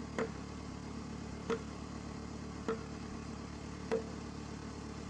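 Evenly spaced hammer blows on metal, four strikes about one and a quarter seconds apart, each with a short ring, over a steady engine hum.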